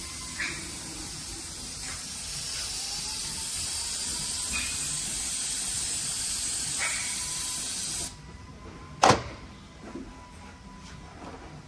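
Aerosol cleaner sprayed onto an aluminum transmission casting: a long steady hiss that cuts off suddenly about eight seconds in. A sharp knock follows about a second later.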